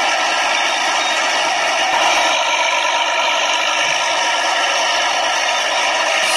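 Steady mechanical rattle of a plastic toy tractor and trailer rolling over rough dirt, its wheels and gears clattering without a break.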